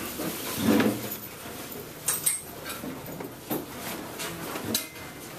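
Classroom clatter of students packing up: bags, desks and chairs knocking, with scattered sharp clicks and thumps over room noise.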